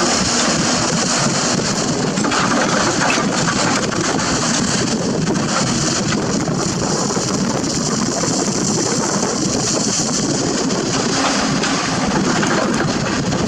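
Excavator diesel engine running steadily at work, under a dense, even hiss.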